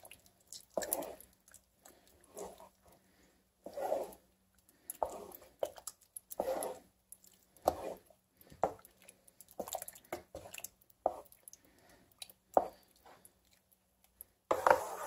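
Wooden spoon stirring a thick ground-meat and tomato sauce in a skillet: a string of short, irregular stirring strokes, about one a second, with brief quiet between them.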